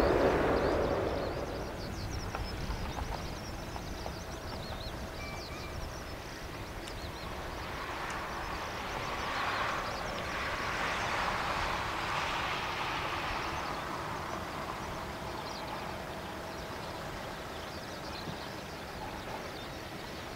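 Four GEnx jet engines of a Boeing 747-8F freighter during landing rollout: loud at first and fading over the first two seconds, then a distant rumble with a hiss that swells and fades around the middle. Faint bird chirps come in early on.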